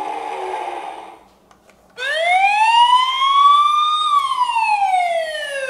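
Electronic police siren from a Matchbox Action Drivers Police Station toy: one wail that rises for about two seconds, then falls for about two seconds.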